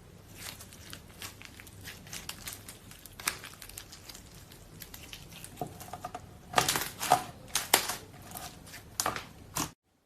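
Slime being squeezed and pressed by hand, a run of crackling pops and clicks, loudest about two-thirds of the way through, then cutting off suddenly near the end.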